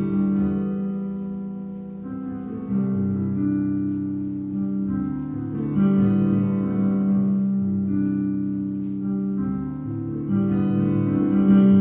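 Slow instrumental music: sustained chords that fade and swell again every three or four seconds, with a guitar-like plucked and keyboard sound.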